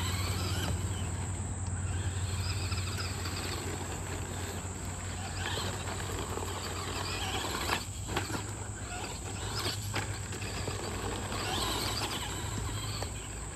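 Insects chirping in a chorus over a steady low hum, while an electric Traxxas Slash 2WD RC truck drives on a dirt track, its running faint. A few brief scuffs come about two-thirds of the way through.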